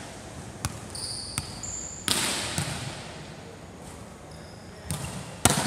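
Volleyball being hit and bouncing: a handful of sharp slaps and thuds on the wooden court, echoing around a large sports hall, the loudest near the end. Short high squeaks come between the hits a second or two in.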